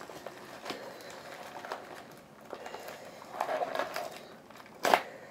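A plastic postal mailer being handled and pulled open: faint crinkling and rustling with small clicks, and one sharp snap near the end.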